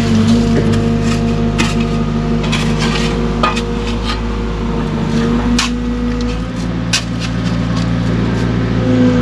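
Cat excavator's diesel engine running steadily, with irregular scrapes, clicks and knocks from the bucket digging through soil and rock.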